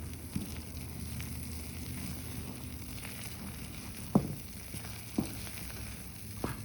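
Molten, microwave-burnt Gushers candy being stirred in its container, with a faint sizzling bubble and three sharp knocks of the utensil, the loudest about four seconds in.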